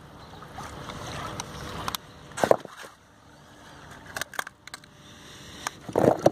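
A few short knocks and scrapes, as of stones and debris being shifted by hand, over a steady faint hiss. The loudest knocks come about two and a half seconds in and again about six seconds in.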